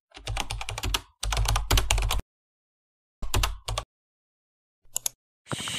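Computer keyboard typing: two quick runs of keystrokes, then a short burst of a few more keys, then two faint clicks.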